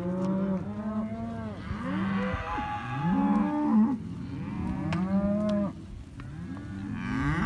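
A herd of range cattle mooing, several cows calling one after another and over one another.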